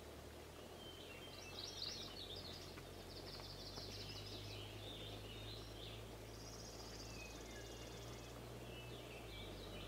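Small songbirds singing and calling: scattered chirps and warbled phrases, with a fast, high, even trill about six to eight seconds in, over a steady low hum.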